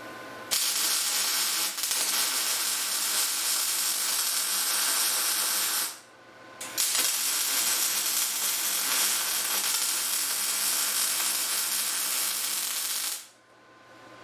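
Steady, loud hissing spray in two long bursts of about five and six seconds, with a brief puff between them; each burst cuts off abruptly.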